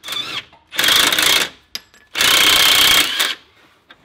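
Cordless impact wrench hammering on the lower rear shock bolt in three bursts, a short one at the start, a longer one about a second in and the longest at about two seconds, each with a high metallic ringing over the rapid hammer blows.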